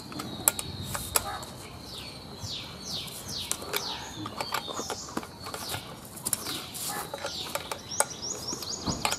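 Birds chirping outdoors: many short, quick calls that fall in pitch, one after another, over a faint steady high tone. A few sharp clicks and taps of handling the chainsaw's parts and screws break in now and then.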